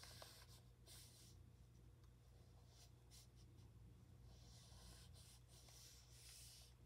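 Faint swishes of a Chinese calligraphy brush stroking across paper: a few short strokes, then a longer run of strokes near the end. A low steady hum lies underneath.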